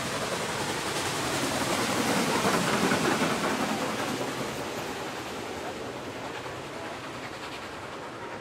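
Norfolk & Western 611, a class J 4-8-4 steam locomotive, passing close by, loudest about three seconds in. Its passenger cars then roll past on the rails as the sound slowly fades.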